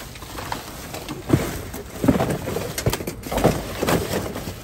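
Plastic bags and cardboard rustling and shifting as trash is rummaged by hand inside a steel dumpster, with irregular crackles and a sharp knock a little over a second in.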